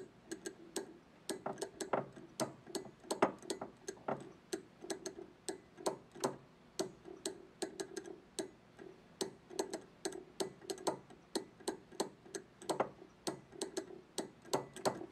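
Telegraph straight key sending a Morse code station ID: the key contacts click sharply and unevenly in dots and dashes, with a low keyed tone sounding in short and longer pieces along with the clicks.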